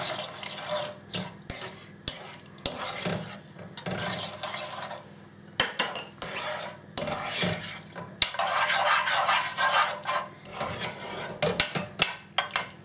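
A spoon stirring a thick, milky halwa mixture of grated bottle gourd in a cooking pan, scraping and clicking against the pan in irregular strokes while the sugar dissolves.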